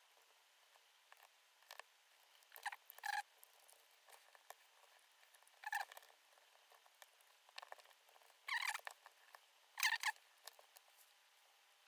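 Small plastic scratches and clicks from prying and handling a Walkman's casing, coming in short irregular bursts, the loudest about ten seconds in.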